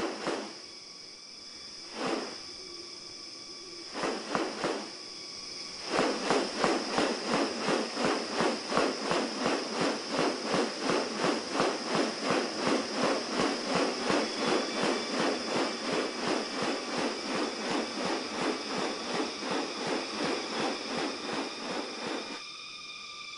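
Rainforest wildlife sounds: a steady high insect drone, with a few short calls early on. About six seconds in, a loud call joins that pulses about three times a second and stops shortly before the end.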